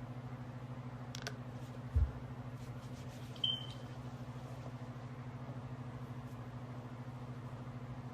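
A steady low hum, with a sharp click about a second in, a dull thump about two seconds in, and a brief high chirp a moment later.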